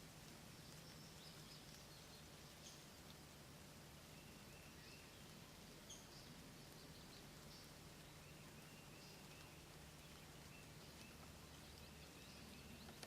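Faint, distant songbird chirps and short trills, repeating at intervals over a quiet background hiss and low hum.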